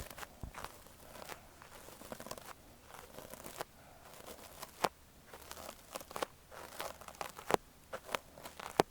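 Ear-cleaning tool scraping and rubbing inside an ear during ASMR ear cleaning: irregular crackly scratches with sharp clicks, the loudest about five, seven and a half and nine seconds in.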